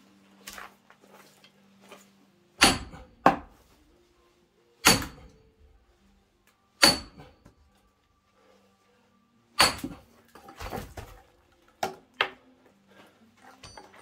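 A splitting axe chopping larch rounds for firewood: about five heavy, sharp blows one to three seconds apart, followed by several lighter knocks near the end.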